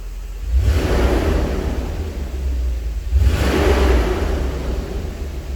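1993 Mercedes SL500's 5-litre V8 engine running with the car stationary, revved up twice, the first time about half a second in and the second about three seconds in.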